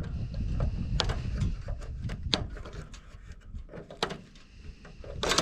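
Stove parts being handled and pulled apart: scattered clicks and knocks, with a louder clatter near the end.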